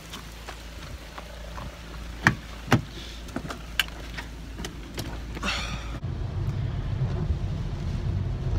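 Raindrops tapping on a phone's microphone, with two louder knocks about two and a half seconds in. About six seconds in the sound cuts to a car's cabin with a steady low rumble.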